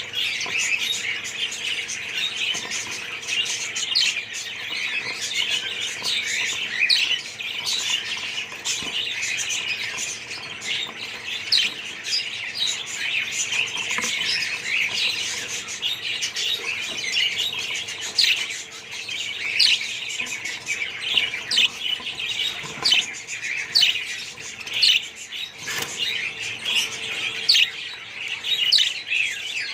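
A colony of budgerigars chattering and chirping together, a dense continuous warble of short squeaky notes with occasional sharper calls.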